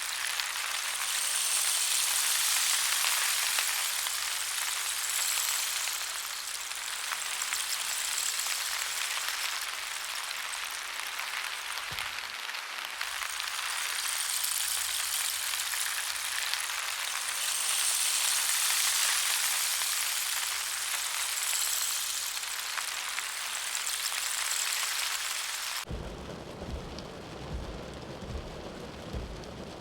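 Rain sound effect: a dense, steady hiss of heavy rain that swells and eases in slow waves. Near the end it cuts abruptly to a duller rain sound with low rumbling.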